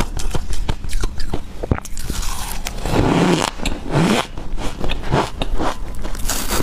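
Close-miked biting and chewing of ice coated in matcha powder: a quick run of crisp crunches, thickest between about two and four seconds in.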